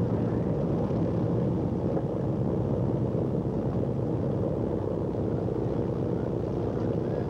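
Steady low drone of boat engines running.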